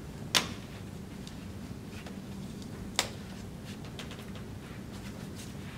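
Two sharp snaps about two and a half seconds apart, with a few faint ticks between: press-stud snap fasteners on a stroller's basket and webbing belt being worked by hand.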